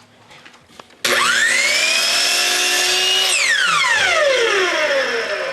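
Electric power saw switched on: the motor spins up with a quickly rising whine, runs at a steady pitch for about two seconds, then is released and coasts down with a long falling whine.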